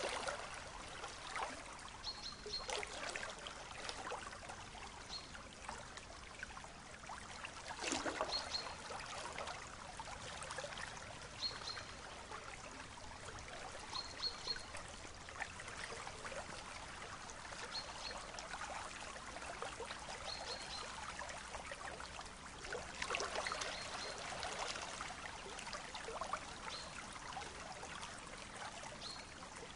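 River water flowing and trickling, with dogs splashing through the shallow water in louder surges about eight seconds in and again around twenty-three to twenty-five seconds in.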